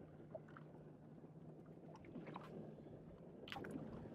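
Quiet: a faint steady low hum with a few light rustles and clicks of fishing line and a jig being handled by hand, the loudest about three and a half seconds in.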